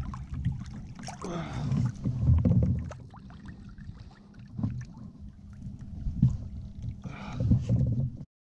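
Sounds of a fishing kayak on open water: water sloshing and lapping against the hull, with an uneven low rumble that swells and fades, and scattered small knocks and clicks from gear being handled. The sound cuts off abruptly near the end.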